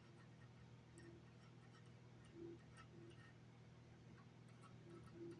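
Near silence with a steady low hum and faint, scattered small ticks and scrapes: old adhesive being picked and wiped off a headset ear cup.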